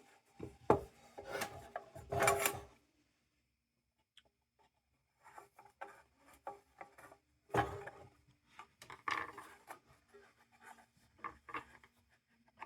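Lens being worked off an old lantern by hand: irregular scraping and rubbing with small clicks and knocks, stopping for about two seconds near the start before carrying on.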